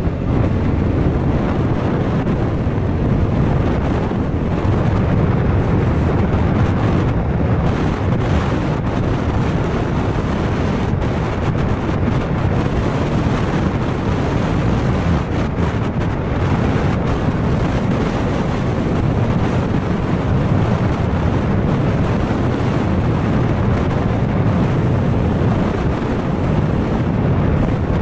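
Steady wind buffeting an action camera's microphone on a moving scooter, a dense low rumble mixed with road noise at roughly 30 to 50 km/h.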